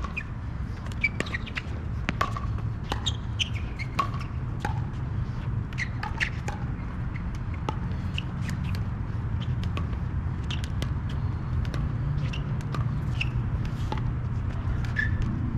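Pickleball rally: irregular sharp pops of paddles striking the plastic ball, with short squeaks of sneakers on the hard court. A steady low hum runs underneath.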